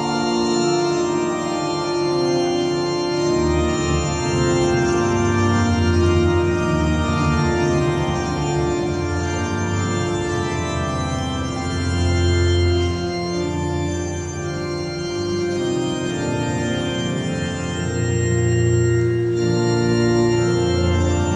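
Organ playing slow, held chords, with the low notes changing every few seconds.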